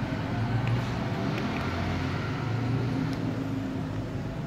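Steady low background rumble, with a few faint ticks.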